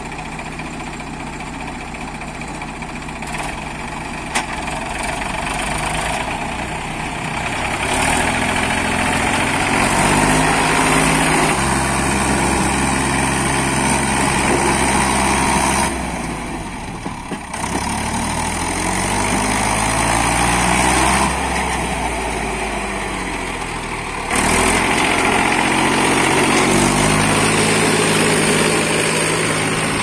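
Heavy diesel engines of a backhoe loader and a farm tractor running, steady at first, then rising and falling in pitch as they are revved under load. The sound changes abruptly about halfway through and again near three quarters of the way.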